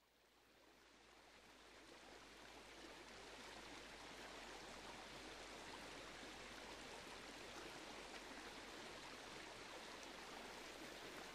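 Faint, steady rush of running water from a stream, fading in over the first few seconds.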